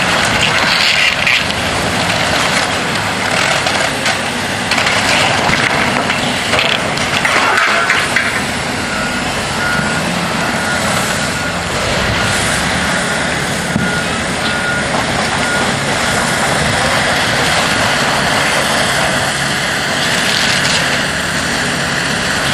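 Heavy demolition machinery running steadily, with crunching, crashing debris in the first eight seconds or so. From about nine seconds in, a reversing alarm beeps at an even pace over the engine noise.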